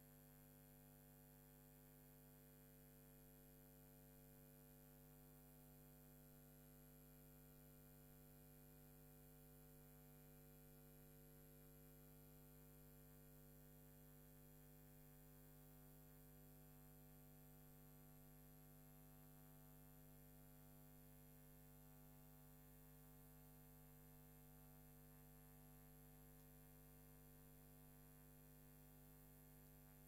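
Near silence: only a faint, steady electrical hum made of several even tones, with no change.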